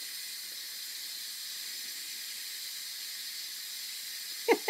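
Instant Pot electric pressure cooker venting steam through its release valve during a quick release: a steady hiss.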